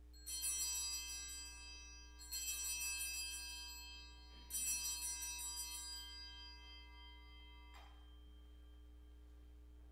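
Hand-held altar bells (sanctus bells) shaken three times, each ring a bright jangle of many high tones that fades over about two seconds. They are rung at the elevation of the chalice during the consecration.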